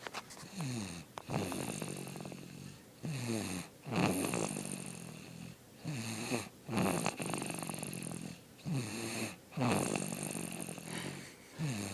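A sleeping baby snoring: slow, regular snores, about one every two to three seconds.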